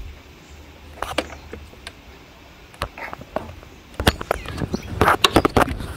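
Hand tools clicking and clinking against the bolts and wiring bracket of a BMW B48 engine while it is unbolted: scattered single clicks, then a quick run of clicks in the last couple of seconds.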